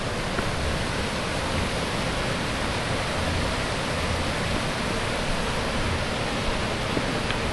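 River rushing steadily, a constant even hiss with no breaks.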